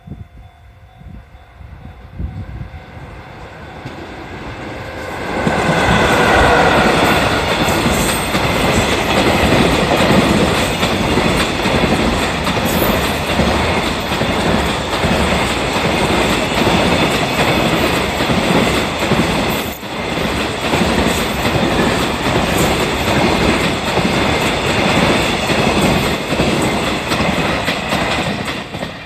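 EF66 electric locomotive hauling a freight train through a level crossing. It arrives loudly about five seconds in, followed by a long run of freight wagons clattering rhythmically over the rail joints, which drops away just before the end. A level-crossing warning bell rings steadily throughout.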